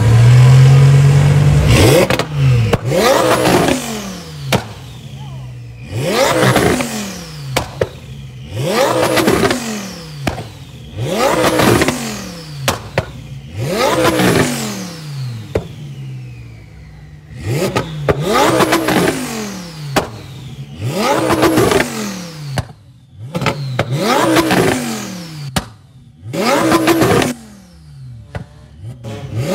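A twin-turbo Audi R8 V10 with a straight-piped exhaust holds a steady note for about two seconds, then is blipped hard about eleven times, roughly every two and a half seconds. Each rev climbs and falls back with sharp pops and crackles on the overrun, and a high whistle falls away after each rev.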